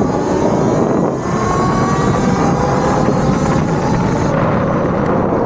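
Wind buffeting the microphone and road noise of a Talaria Sting MX4 electric dirt bike riding at speed, with the electric motor's faint whine rising in pitch about a second or two in.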